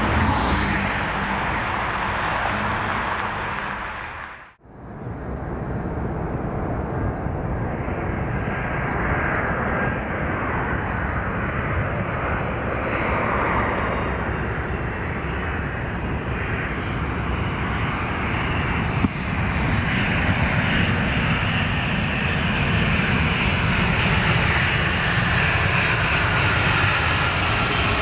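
Jet engines of Boeing 767-300ER airliners on the runway, a loud steady roar. It fades out sharply to a brief quiet about four and a half seconds in and comes back as a second 767 lands and rolls out. A short knock comes about two-thirds of the way through, and near the end an engine whine slowly falls in pitch.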